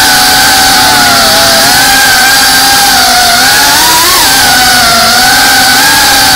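FPV quadcopter's electric motors and propellers whining, heard close from the onboard camera with a loud rush of air. The pitch wavers with the throttle and rises briefly about four seconds in.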